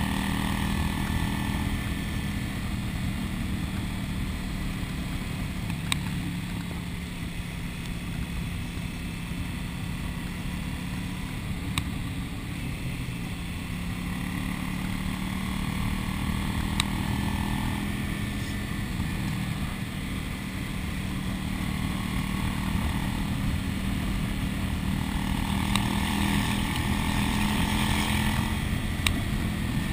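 Cruiser motorcycle engine running at a steady road speed under a steady rush of wind and road noise, with a few faint sharp ticks.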